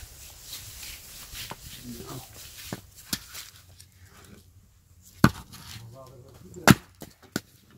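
About five sharp knocks at irregular intervals, the loudest near the end, with faint voices murmuring between them.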